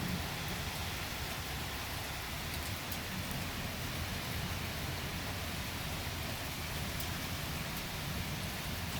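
Rain falling steadily, an even hiss that holds at the same level throughout.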